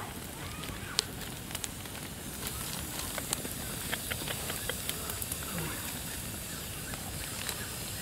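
Open wood fire crackling steadily with a constant hiss and scattered sharp pops, one louder pop about a second in.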